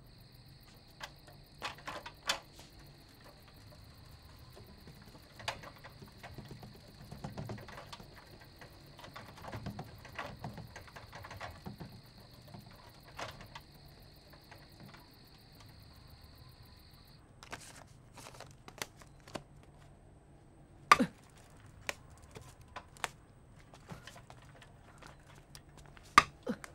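A steady high insect chirring with scattered light clicks and clatter, which stops about two-thirds of the way through. Later come two loud sharp slaps about five seconds apart, from a live snakehead fish being gripped and slapping on a wet tiled floor.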